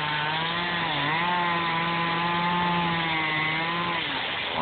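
Gas two-stroke chainsaw running near full throttle as its chain cuts through a block of expanded polystyrene foam. The engine pitch holds steady, dips briefly about a second in, then falls as the throttle is let off near the end.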